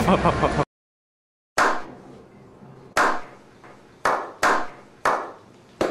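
Music and speech cut off short, then about a second of dead silence, then a slow clap: single loud hand claps with an echo, spaced more than a second apart at first and coming quicker toward the end.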